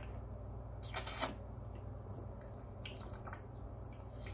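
A person drinking Coca-Cola from an aluminium can: one short slurp about a second in, then a few faint clicks, over a steady low hum.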